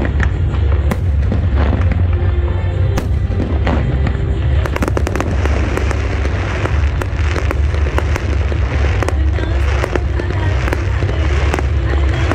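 Fireworks going off: sharp bangs and crackles over a steady low rumble, coming much thicker about halfway through.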